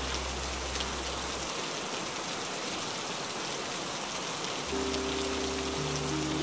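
Steady rain with soft ambient music over it. A low held note fades out about a second and a half in, and new held chords come in during the last couple of seconds.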